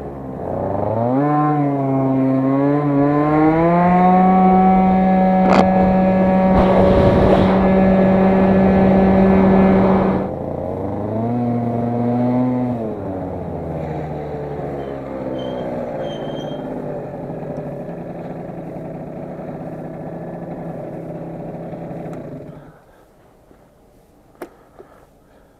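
Aprilia SR50R scooter's 50 cc two-stroke single accelerating, its pitch climbing and then holding at high revs, with a short rush of noise over it about seven seconds in. About ten seconds in it eases off, revs once more briefly, then runs at low revs until it is switched off and cuts out suddenly near the end, followed by a couple of small clicks.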